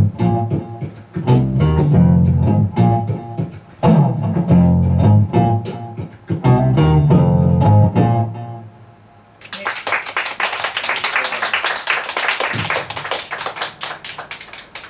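Archtop guitar over a bass-pedal bass line, playing the closing phrase of a jazz tune, which ends about eight seconds in. About a second later an audience breaks into applause, which runs to the end.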